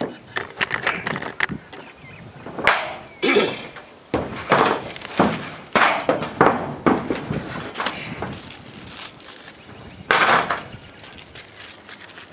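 Irregular knocks and clatters, a dozen or so sharp hits scattered through, some followed by brief scraping or rustling.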